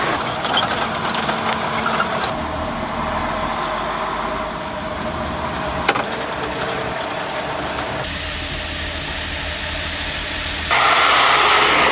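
Motor vehicle running steadily, engine hum and road noise, with a single sharp click about six seconds in and a sudden louder stretch of noise near the end.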